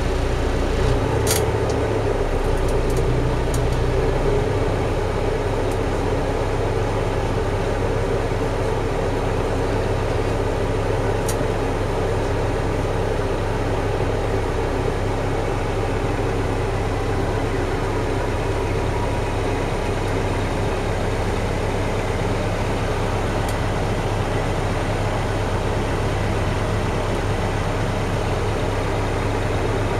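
Engine of a 1981 GDR-built motor passenger ferry running steadily, heard from inside the cabin as a steady low hum. The low engine note shifts about four seconds in.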